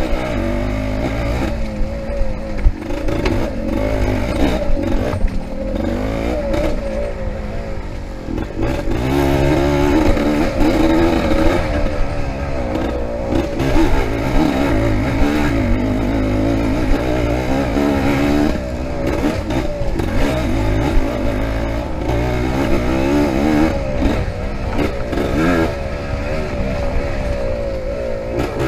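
Yamaha IT200's two-stroke single-cylinder engine revving up and down without a break as the bike is ridden hard off-road, its pitch rising and falling with throttle and gear changes. Now and then a short knock or clatter cuts through.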